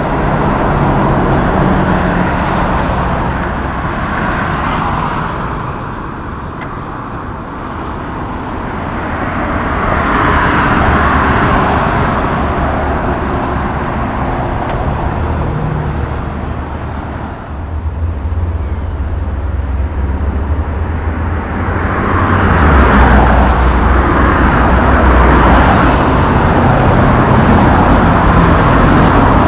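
Road traffic with heavy diesel trucks driving past one after another, each one swelling up and fading away with engine and tyre noise. From a little past halfway, traffic runs close by, with a steady low truck engine tone under it.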